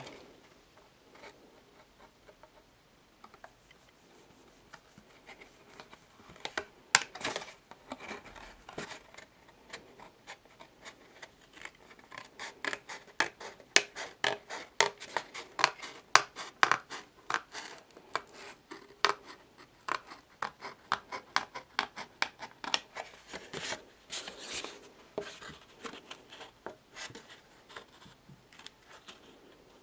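Nail scissors snipping through thick card in many short, crisp cuts, starting about six seconds in and running on in quick series.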